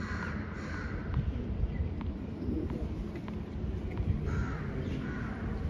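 Crows cawing a few times, with faint taps in between.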